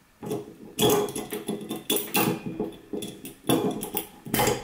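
Needle-nose pliers and locking pliers clinking and scraping on stainless steel wire as it is twisted into a loop around a drill bit, in several short bursts.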